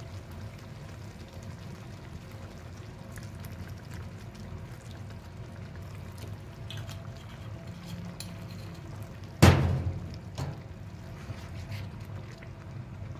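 White wine poured from a glass bottle into a pan of simmering sauce, over a steady low bubbling. A single sharp knock about two-thirds of the way through, with a smaller one just after.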